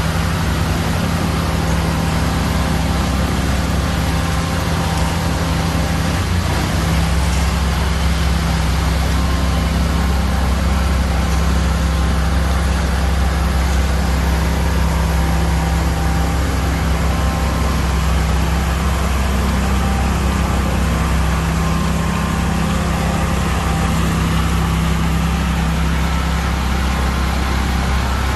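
Concrete power trowel's engine running steadily at an even speed, a continuous low hum.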